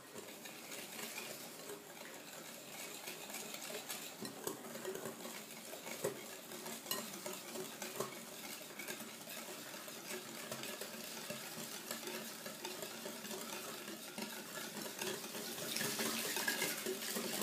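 Wire whisk beating melted butter and brown sugar in a glass bowl: a steady wet swishing with light clinks of the wires against the glass. It grows louder near the end.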